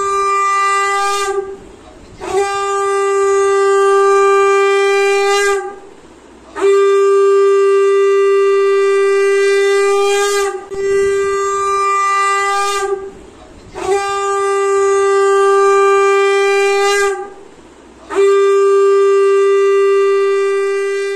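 Conch shell (shankha) blown in a series of long blasts, about six in all, each held on one steady pitch for three to four seconds with short breaths between, some ending in a brief upward flick. It is the auspicious sound customarily made during a Hindu ritual blessing, here the Jamai Sasthi blessing of the son-in-law.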